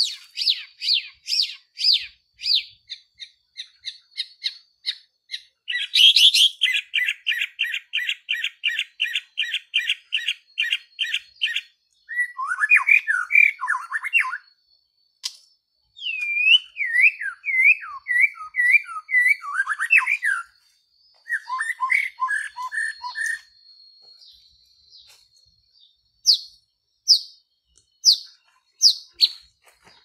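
White-rumped shama singing a long, varied song: fast series of sharp notes, a rapid rattling trill, whistled phrases and looping downward-slurred notes, ending with a few high clear notes. A faint steady high whine runs underneath.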